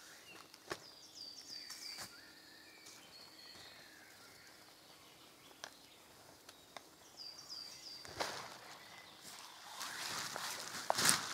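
A songbird singing short runs of high, quickly repeated falling notes, twice. Scattered sharp clicks, and a louder stretch of rustling with knocks near the end.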